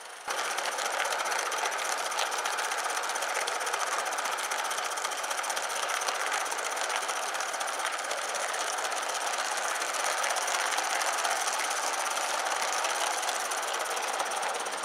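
Accucraft Lynton and Barnstaple 'Lew' live-steam model locomotive running with a train of log wagons: a fast, steady patter of exhaust chuffs and running-gear clatter with steam hiss. It cuts in abruptly just after the start.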